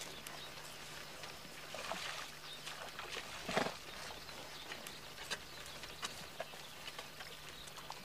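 Przewalski's horses moving about, with scattered hoof knocks and one short, louder sound about three and a half seconds in.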